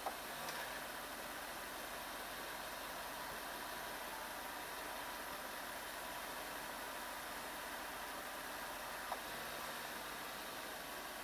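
Mercedes-Benz 500SL's V8 engine running steadily, with a sharp click right at the start and another about nine seconds later, each followed by a brief low hum: the A/C compressor's clutch engaging and releasing, a compressor that keeps switching on and off every few seconds.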